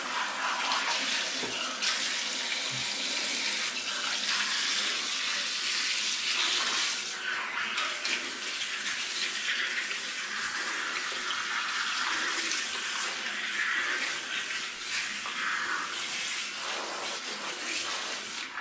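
Water running steadily from a handheld shower-brush head as it is worked over a wet cat's fur, a continuous spray of water.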